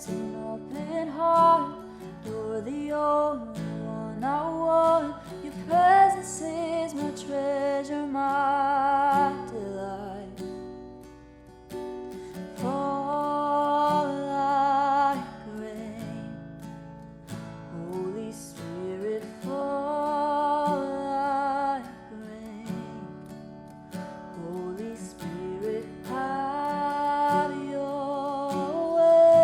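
Worship song: a singer holding long notes with vibrato over a strummed acoustic guitar, in phrases a few seconds long.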